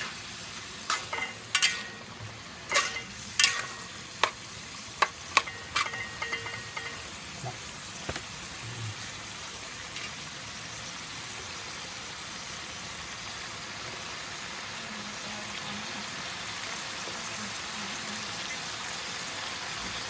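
Metal spatula clanking and scraping against a wok while pork and green vegetables stir-fry over steady sizzling. The clanks stop about seven seconds in, and the sizzling carries on alone.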